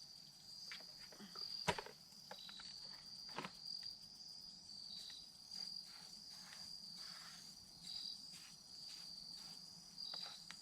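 Insects chirring in a steady, high, pulsing trill, with a few faint clicks and knocks scattered through it.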